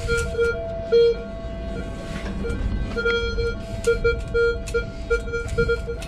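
Metal detector beeping over a target: a mid-pitched tone pulsing on and off several times a second, with a higher tone held for stretches, over a low background rumble and scattered sharp clicks.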